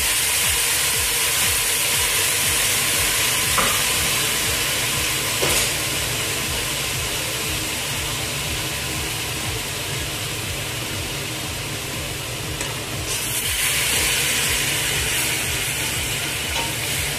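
Chunks of meat on the bone sizzling and frying in hot spiced oil in a stainless-steel pot, with a couple of faint knocks. About three-quarters of the way through, the sizzle gets louder as the meat is stirred with a wooden spatula.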